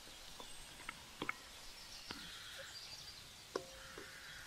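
Quiet outdoor ambience with birds chirping faintly and a few scattered sharp clicks and ticks.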